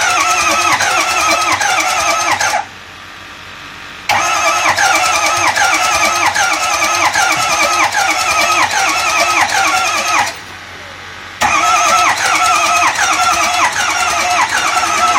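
2005 Ford F-250's 6.0 Power Stroke V8 diesel cranking on the starter without firing, in three long bursts with short pauses about three seconds and ten seconds in. The cranking has a rhythmic, wavering whine, which the owner finds a bit weird, and the engine does not start.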